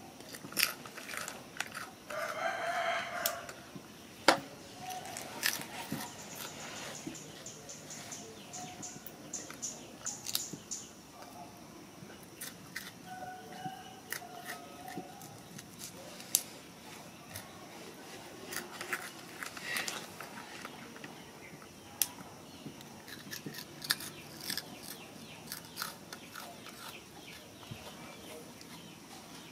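A rooster crows once, about two seconds in, over scattered short clicks and taps.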